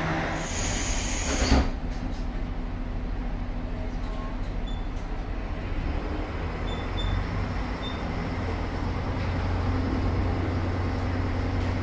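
Diesel engine of a stationary KiHa 47 railcar idling with a steady low hum, growing a little stronger after about eight seconds. About half a second in comes a short hiss of compressed air that ends in a knock about a second and a half in.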